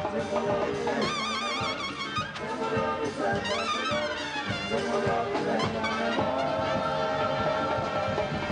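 Live band music led by trumpets playing with a wide vibrato over drums and hand percussion. A sweeping slide up and back down in pitch comes near the middle.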